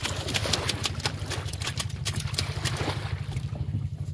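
Low, steady, fast-pulsing throb of a boat engine running, with many short splashes and clicks of water over it.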